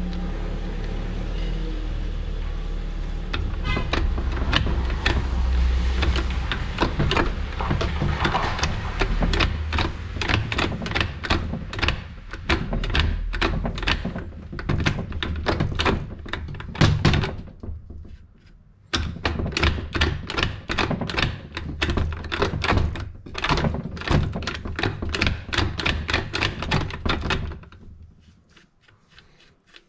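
Dense run of small, sharp metallic clicks and knocks from hand work on a Tofaş four-speed gearbox, over a steady low hum. The clicks break off briefly about two-thirds of the way through and die away near the end.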